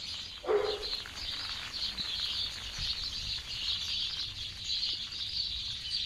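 A flock of small birds chirping continuously in a dense, high chatter, with one brief louder, lower sound about half a second in.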